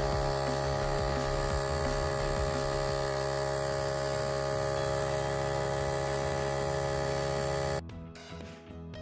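Xiaomi 70mai Air Compressor Lite running steadily while inflating a car tyre, a humming drone at a fixed pitch that cuts off suddenly near the end, followed by background music.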